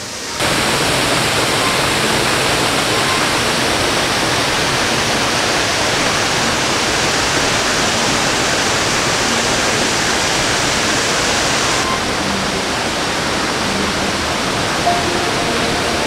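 Waterfall heard up close: a loud, steady rush of falling water. The highest part of the hiss drops away about twelve seconds in, and a few faint steady tones come in near the end.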